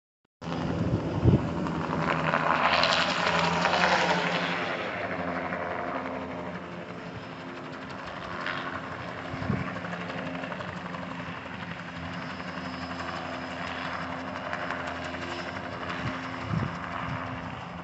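Small helicopter flying low, its rotor and engine making a steady hum. It is loudest about two to four seconds in, where the pitch falls as it goes by, then carries on steadier and quieter.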